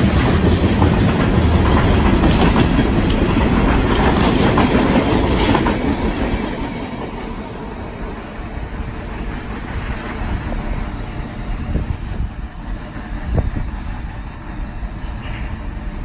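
Freight train rolling past close by, its steel wheels clicking and clacking on the rails. About six seconds in the last car goes by and the noise drops to a fainter rumble as the train moves away.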